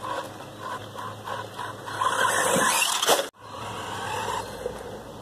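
Small 1/12-scale two-wheel-drive RC truck driving over a dirt track, with a louder whirring, scraping stretch lasting about a second midway that cuts off suddenly.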